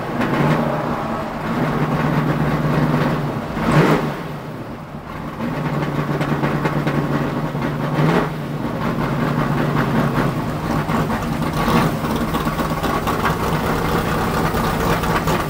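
A stock car's V8 engine running at low revs, heard from inside the cockpit while the car rolls slowly down pit road, with a steady low hum. Two brief knocks sound about four seconds in and again about eight seconds in.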